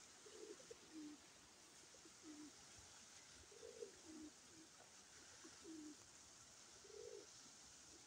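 Pigeons cooing faintly: short phrases of low, soft notes repeated every second or two, over a faint steady hiss.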